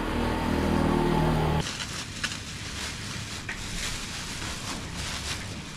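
A motor vehicle's engine running close by, cutting off abruptly about a second and a half in. After that a steady rushing hiss with scattered crackles.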